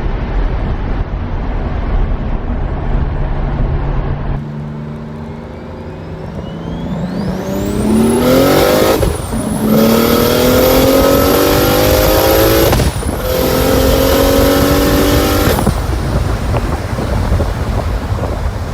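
BMW 335i's turbocharged straight-six accelerating hard through the gears, short of full boost. After steady road noise, the engine note climbs from about five seconds in, with a high whine rising alongside it. It breaks twice at upshifts and climbs again each time, then drops away when the throttle is lifted near the end.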